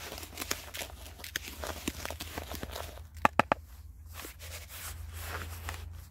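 Dry carp groundbait being stirred and mixed in a container: a continuous crunchy rustle with many small clicks, and a few sharper, louder clicks about halfway through.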